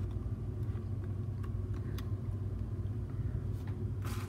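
A few faint clicks and taps of a camera and its packaging being handled, with a short rustle near the end, over a steady low hum.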